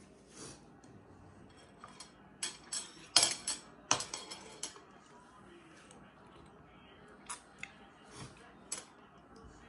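Metal spoon clinking and scraping against a bowl of pho: a quick cluster of sharp clinks a few seconds in, then a few scattered single clinks near the end.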